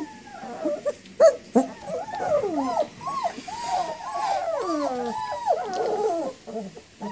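A litter of puppies whining and whimpering together, many high cries rising and falling and overlapping, with a couple of sharp knocks about a second in.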